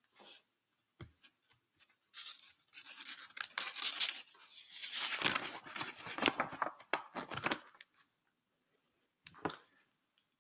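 Rustling and scraping handling noise close to the microphone, in an irregular stretch lasting several seconds, with a short knock about a second in and another near the end.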